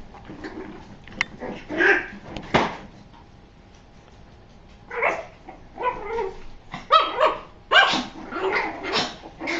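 Toy poodle puppies barking in short, high bursts: a few barks early, a pause of about two seconds, then a quick run of barks for the last few seconds.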